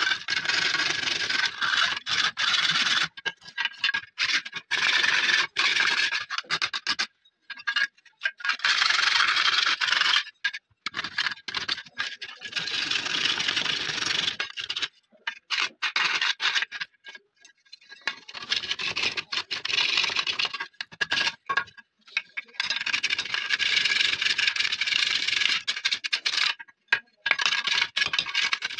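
Flat hand file scraping back and forth along the edge of an AKM magazine clamped in a bench vise, in long runs of strokes broken by several abrupt short silences.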